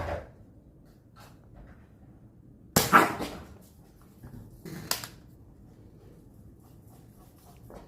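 Nerf blaster firing foam darts: two sharp shots, the louder about three seconds in and another about five seconds in, with a smaller knock at the very start.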